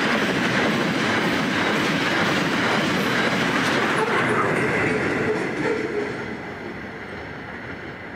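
Container freight train's wagons rolling past on the rails, steel wheels running over the track. The sound drops away after about five seconds as the end of the train passes.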